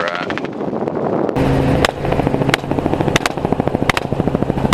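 Helicopter rotor chop and engine running continuously, with about six rifle shots fired from the aircraft starting about two seconds in, some in quick pairs, at feral hogs below.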